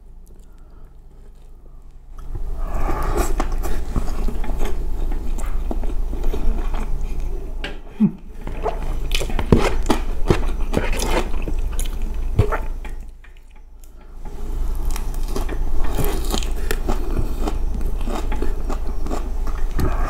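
Close-miked chewing of a mouthful of spiced rice eaten by hand, full of small clicks. It starts about two seconds in, dips briefly around the eight-second mark, stops for about a second and a half near the middle, then starts again.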